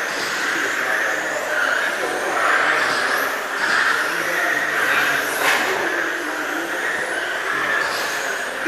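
Several electric radio-controlled GT race cars running laps, a steady high motor whine with pitch rising and falling as individual cars pass.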